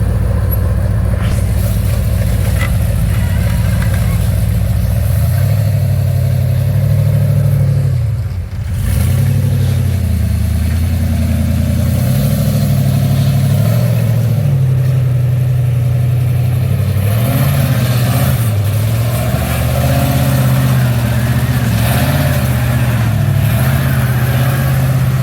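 Off-road vehicle engine running, its revs rising and falling repeatedly, with a brief drop in level about eight seconds in.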